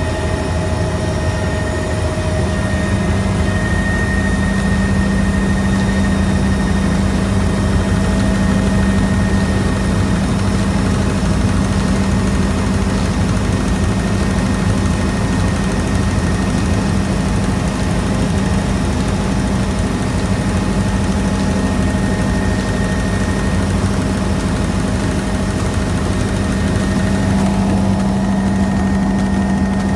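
Helicopter in flight: steady engine and rotor noise, with a steady hum that strengthens about two seconds in and holds.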